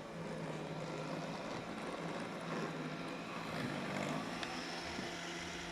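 Xiaomi robot vacuum cleaner running on a carpet: a steady motor hum with a low drone under the suction noise.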